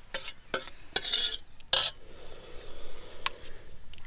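A metal ladle scraping and clinking against a steel bowl and the rim of a cooking pot as marinated chicken is scraped into a curry: several quick strikes in the first two seconds and a single click about three seconds in, with a faint sizzle from the pot underneath.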